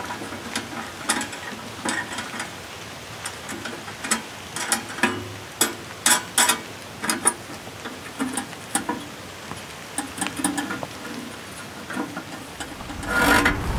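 Irregular small clicks and knocks, some with a light metallic clink, from objects being handled, with a louder rustle near the end.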